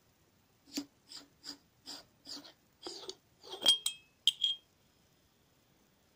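Machined aluminium oil catch can being unscrewed by hand: about seven short rasps of the threads turning, roughly two a second, then a few ringing metal clinks as the bottom section comes apart.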